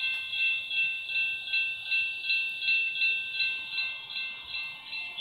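Railroad grade crossing warning bell ringing in steady, evenly spaced strokes, nearly three a second, as the crossing gates move: the crossing is active for an approaching train.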